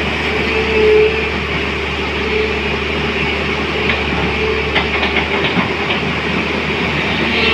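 SANY crawler excavator's diesel engine running under load as the boom and bucket work, with a steady whine that swells briefly about a second in and again near the end. A few light clanks sound around the middle.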